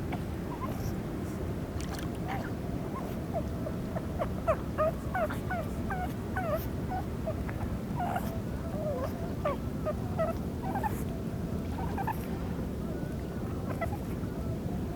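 Dog whining and whimpering in a rapid run of short, high cries, a few a second, over a steady rush of background noise.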